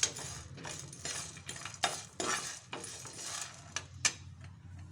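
A spoon stirring dry peanuts, coriander seeds and lentils as they roast in a pan without oil: a run of irregular scraping, rattling strokes, with a couple of sharper clinks against the pan.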